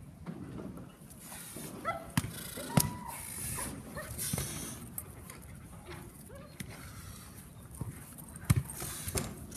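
Young Doberman barking a few short times while lunging at the helper during bite work, with a few sharp knocks and scuffs and wind on the microphone.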